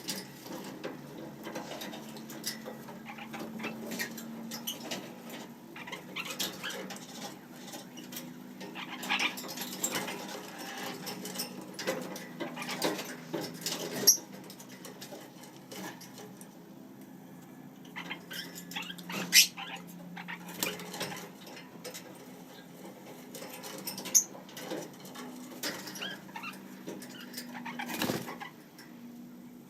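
Lineolated parakeets making soft, short chirps and chatter, mixed with clicks and scratching, over a steady low hum.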